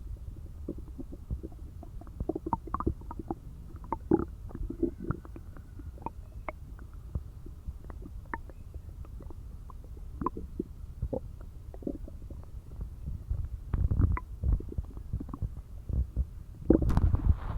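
An empty human stomach growling: a continuous low rumble with many quick gurgles and pops, swelling into a louder gurgling burst near the end. The growling is hunger after a day without food.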